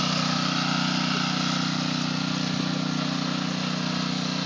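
Honda self-propelled walk-behind lawn mower's four-stroke engine running at a steady speed, with a steady hiss over it.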